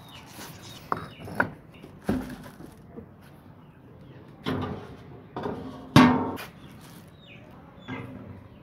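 Knocks and clatter of a rusty metal basin being lifted and handled, and a steel food bowl set down on a wire rack; the loudest knock comes about six seconds in.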